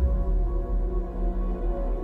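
Ambient background music: sustained held notes over a deep low drone that enters at the start.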